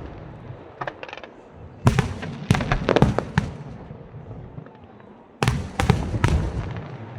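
Aerial fireworks bursting in volleys of sharp bangs. There are a few small pops about a second in, a dense cluster of bangs around two to three seconds in, and another volley near the end.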